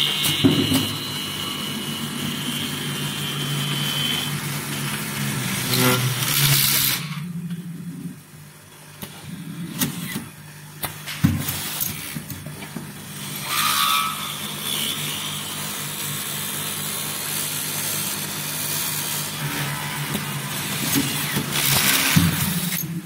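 Automatic screw-fastening machine running: a steady low hum with the electric screwdriver's thin whine as it spins screws in, and two loud bursts of hissing air from the pneumatic valves and cylinders.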